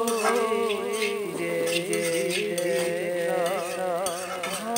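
Background song, a voice holding long, wavering notes, with scattered light clinks and scrapes of a metal spoon stirring flattened rice in a pan.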